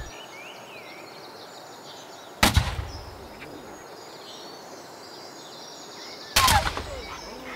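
Two black-powder musket shots fired with blank charges, about four seconds apart, each a sharp bang with a short fading tail.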